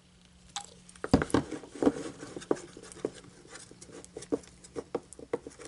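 Green glue slime being stirred and squished in a bowl just after contact solution is added, as it starts to firm up: a quick, irregular run of sticky squelches and clicks that starts about a second in.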